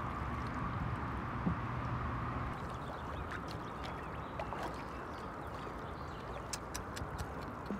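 Water lapping and gurgling against a small fishing boat's hull, with a low steady hum that stops about two and a half seconds in and scattered small clicks later on.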